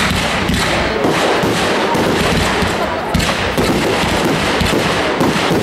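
Fireworks display: a rapid run of shell bursts and crackling bangs, with heavier booms just at the start and again about three seconds in.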